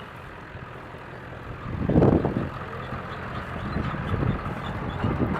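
Dually pickup truck's engine running under load while towing, with a louder rumbling surge about two seconds in.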